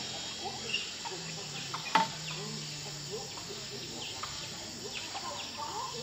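Chickens clucking in short, scattered calls over a faint low hum, with one sharp knock about two seconds in.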